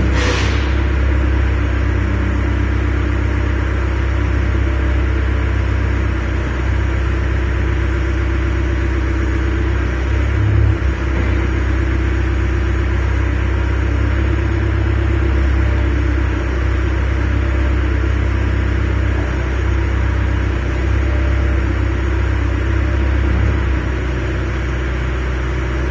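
Bitsmann 6-ton mini excavator's diesel engine running steadily with a low rumble as the boom and bucket are worked. There is a short click right at the start and a brief thump about ten seconds in.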